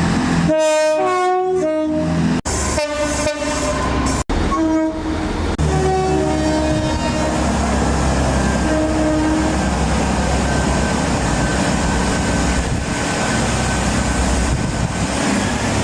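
Train horns sounding in short blasts that alternate between two pitches, over several quick cuts in the first few seconds. After that, a steady heavy low rumble of a train running past, with a few more short horn notes.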